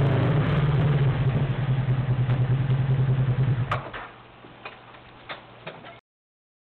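A vehicle engine idling with a steady low pulsing, picked up by a security camera's built-in microphone; it drops away a little under four seconds in, leaving a quieter background with a few sharp clicks, and the sound cuts off entirely about six seconds in.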